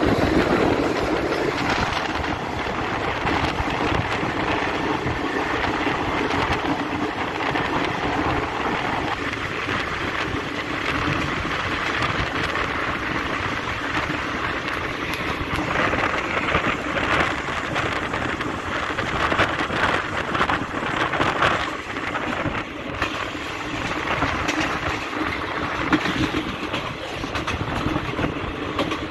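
Wheel and rail noise of a moving passenger train heard through an open window, mixed with the rush of a freight train going by on the next track. The freight train's two diesel locomotives pass at the start, then a long line of fuel tank wagons.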